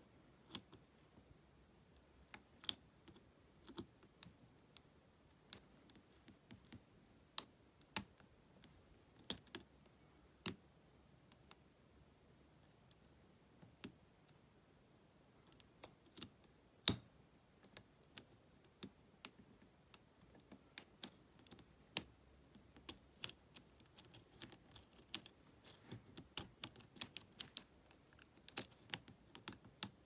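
Lock pick working the pin tumblers of a Lockwood 120N 50 mm brass padlock: small sharp metallic clicks at irregular intervals. They come sparsely at first and in quick clusters over the last ten seconds or so.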